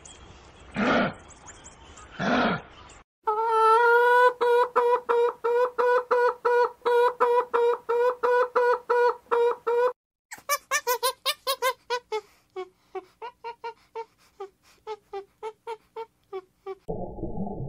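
Two short breathy huffs, then chickens clucking in a long, even run of pitched calls, about three a second. These are followed by a series of shorter, higher calls, quick at first and then slower, and a low muffled rushing starts just before the end.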